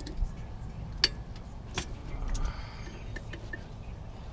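Sharp metallic clicks and clinks of pliers prying open brake pad retaining clips and working a rear brake pad free of its caliper bracket, the loudest click about a second in, over a low steady rumble.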